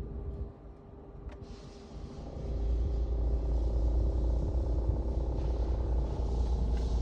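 Running engine in a Suzuki car's engine compartment with the air conditioning on, a steady hum with a deep rumble underneath: the noise the owner is checking. It falls much quieter for about two seconds early on, with one click in the middle of the lull, then comes back at full level.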